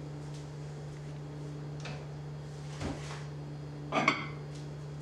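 Steady low hum with a brief ceramic clink about four seconds in, as a bowl is lifted off a stack of plates and rings for a moment.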